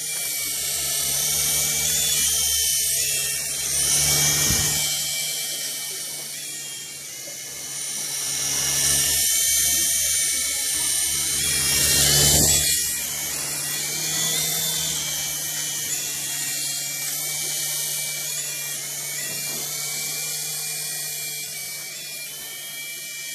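Small electric motors and rotor blades of an HX 701 toy RC helicopter whirring with a steady high whine, swelling louder about four seconds in and again about twelve seconds in as the throttle is raised.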